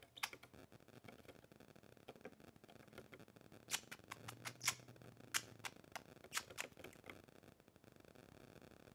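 Two budgerigars' claws and beaks tapping on a wooden tabletop: scattered, irregular sharp clicks, one about a quarter-second in and a cluster between about four and seven seconds in.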